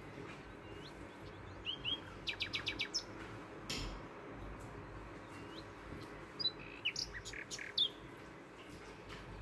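A small bird chirping: short high chirps, with a quick run of several notes about two seconds in and another cluster of chirps near the end.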